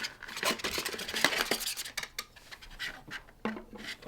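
Small hard plastic parts of a suction cup camera mount being handled and set down: a string of light clicks, clinks and scrapes.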